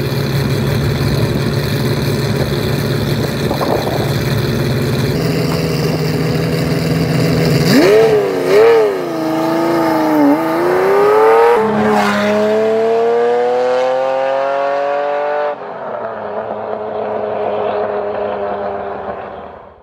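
Ferrari sports car engine running steadily, then revved up and down a few times about eight seconds in. It pulls rising through the revs after a change near twelve seconds, then drops to a lower steady drone for the last few seconds.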